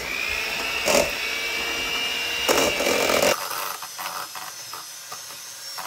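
Electric blender blending ripe bananas: the motor spins up with a rising whine and runs steadily, louder about a second in and again just before the whine cuts out about three seconds in.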